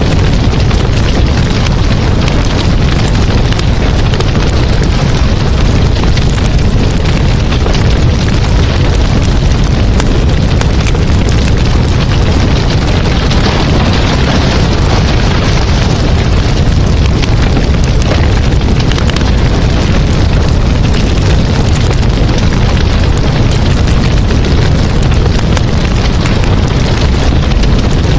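Strong wind blasting across the microphone: a loud, continuous rumbling roar, heaviest in the low end, with no let-up.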